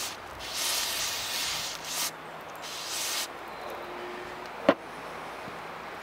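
An aerosol can of carburetor cleaner spraying in two bursts, the first about two seconds long and the second about a second long, flushing out the oiler holes of a chainsaw bar. A single sharp knock follows near the end.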